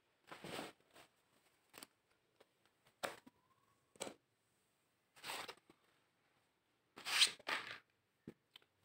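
A series of brief rustles and handling noises, about eight short separate bursts, the loudest pair near the end.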